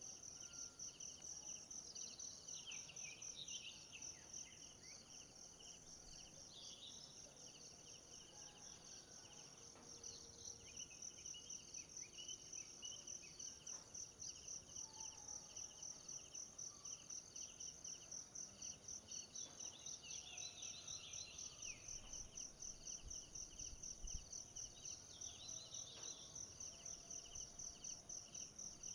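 Faint insect chorus: a steady high-pitched trill pulsing a few times a second, with a lower pulsing trill beneath it. Short bird chirps break in now and then.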